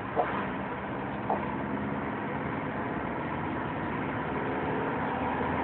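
Steady engine and road noise of a moving vehicle, with two brief short high sounds, one just after the start and one about a second later.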